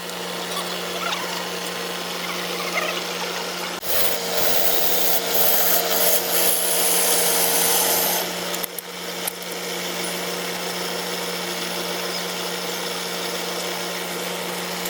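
Woodturning lathe running with a steady motor hum while a hand tool works the spinning wood with a rubbing, scraping hiss that grows louder for a few seconds about four seconds in.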